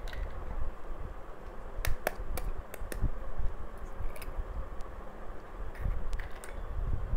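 Eggs being cracked open and emptied into a glass dish: a few scattered sharp clicks and taps of eggshell, over low handling noise.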